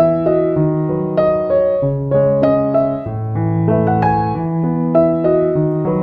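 Background piano music: a gentle melody of single notes over slowly changing bass notes.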